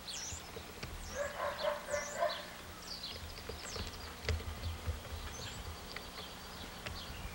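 Small birds chirping: many short, quick chirps and whistles, with a lower, fuller sound between about one and two seconds in.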